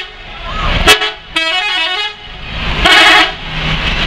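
Sumber Jaya Trans bus telolet horn: a multi-tone musical air horn plays a short stepping melody about a second and a half in, then a louder, brief blast near three seconds, over a low engine and traffic rumble. A sudden loud crack comes just under a second in.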